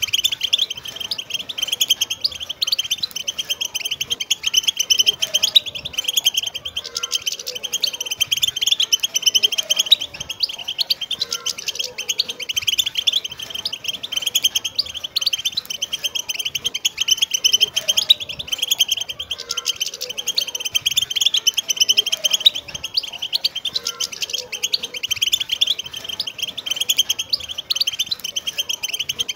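A flock of wild European goldfinches twittering together: a dense, unbroken stream of quick, high chirping notes.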